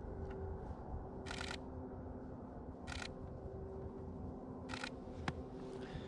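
Nikon DSLR shutter firing three short rapid bursts of frames, each under half a second and about a second and a half apart, then a single click near the end.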